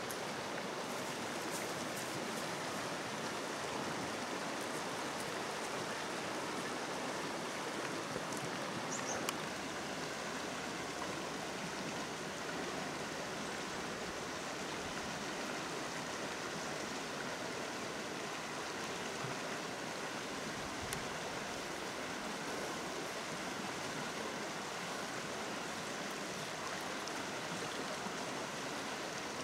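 Shallow river running steadily over rocks and small rapids, a continuous rushing of water, with a brief faint click about nine seconds in.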